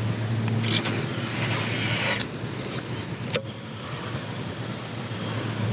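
Baitcasting reel's spool whirring as line pays out during a cast: a hiss that falls in pitch for about a second and a half, followed about a second later by a single sharp click. A steady low hum runs underneath.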